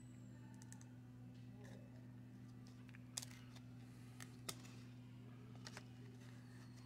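Near silence over a steady low hum, with a few faint ticks of baseball cards being shuffled by hand, the clearest about three and four and a half seconds in.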